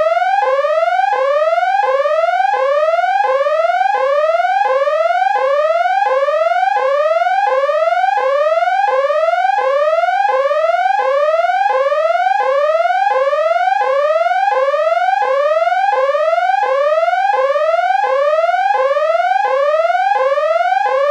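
Electronic siren wailing in fast repeated rising sweeps, about three every two seconds, each climbing in pitch and then dropping back sharply.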